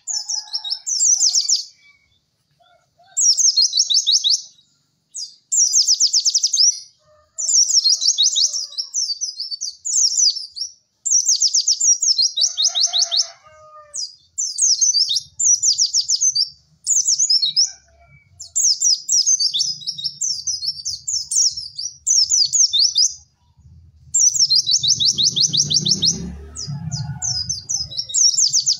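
White-eye (pleci) singing: a string of fast, high, chattering trills, each about a second long with short pauses between, the 'cek cek werr' song of a white-eye training recording. A faint low rumble sits under the song near the end.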